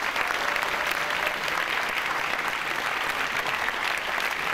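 Audience applauding, steady dense clapping from many hands.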